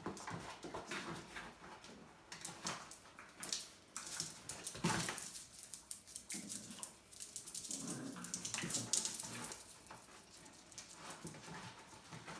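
Puppies scuffling over a torn cardboard box: irregular cardboard rustling and scraping, loudest about five seconds and nine seconds in, with brief puppy vocal sounds around the eight-second mark.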